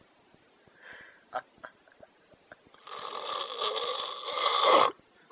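A sleeping man snoring heavily: after a soft breath and a few small clicks, one long snore of about two seconds that grows louder and cuts off suddenly.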